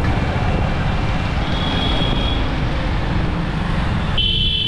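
Street traffic noise, a steady rumble of passing vehicles, with a short high vehicle horn sounding twice, once about a second and a half in and again near the end.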